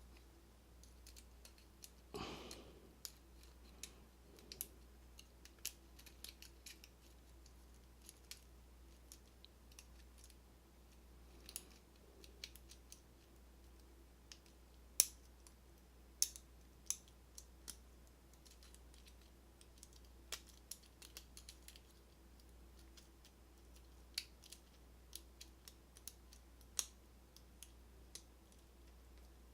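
Lock pick and tension wrench working the pins of a Kwikset KIK cylinder: faint, irregular small metallic clicks, a few sharper ones, with a soft knock about two seconds in.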